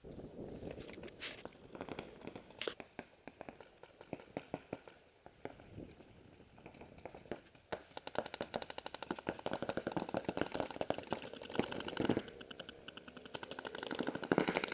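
Paintball markers firing in quick strings of pops, scattered at first and turning into dense rapid fire from about eight seconds in.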